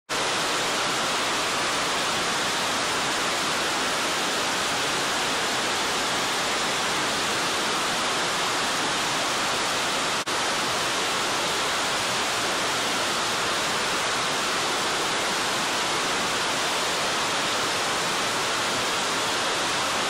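Shizuku Falls, a two-tier waterfall about 30 m high, pouring into its plunge pool: a loud, steady rush of falling water, with a momentary break about ten seconds in.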